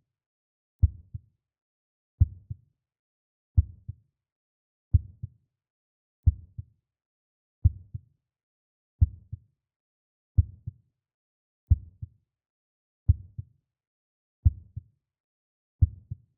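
Heartbeat sound effect: a slow, steady lub-dub, each beat a strong low thump followed closely by a softer one, about one beat every 1.4 seconds.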